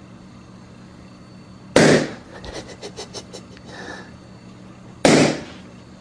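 Two black rubber balloons bursting with loud pops about three seconds apart, burst by a laser pointer's beam. A few light ticks follow the first pop, over a faint steady hum.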